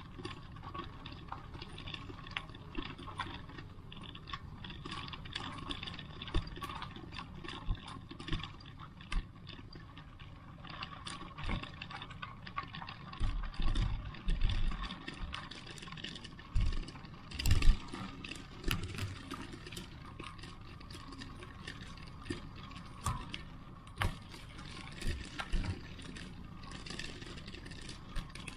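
Outdoor street ambience: a steady background rumble with many small clicks and rattles, and a few heavy low thumps around the middle, the loudest a little past halfway.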